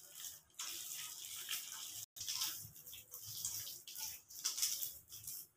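A hand squishing and kneading a wet batter of palm fruit pulp, grated coconut, semolina and flour in a steel bowl: irregular wet squelches with short breaks.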